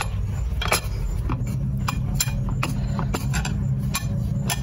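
Chicken leg being dredged by hand in seasoned flour on a ceramic plate, with scattered sharp clicks and clinks against the plate. Under it runs a steady low machine hum.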